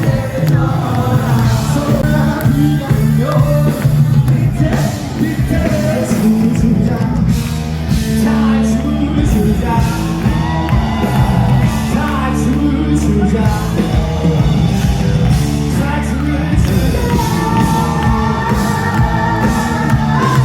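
Live band music with a lead vocal singing over a steady bass and band accompaniment.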